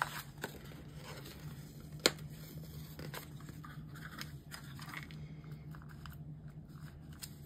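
Faint handling of paper sticker sheets: stickers peeled and paper crinkling, with a few sharp clicks, the sharpest about two seconds in.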